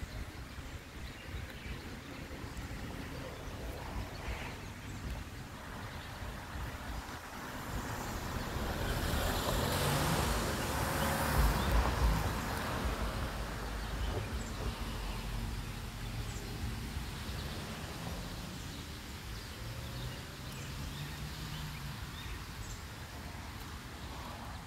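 A motor vehicle passing: its noise swells to a peak about ten to twelve seconds in and then fades, leaving a low engine hum.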